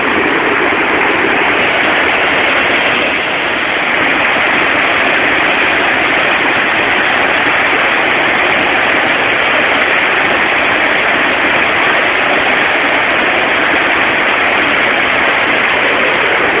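Loud, steady rush of river water pouring over a weir.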